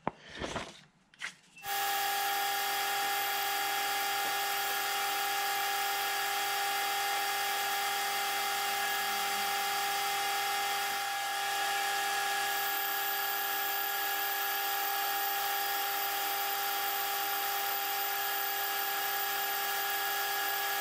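AL960B metal lathe running steadily with a machine whine while a boring bar cuts inside the spinning workpiece, boring out its bore. The sound starts about two seconds in.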